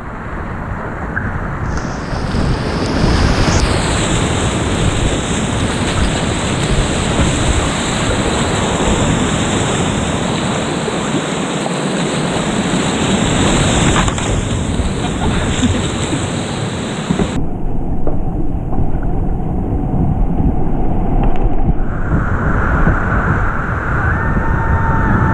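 Whitewater rapids rushing loudly around a kayak, heard from on board in a steep, rocky creek. About two-thirds of the way in the rush turns duller, losing its hiss.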